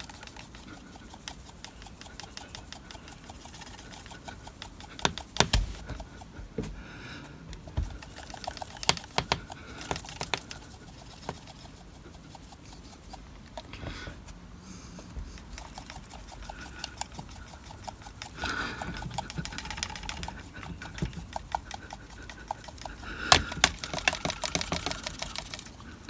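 Handheld electrostatic static grass applicator being shaken vigorously over a model embankment: a fast, uneven patter of small rattles and ticks, with a few louder knocks now and then.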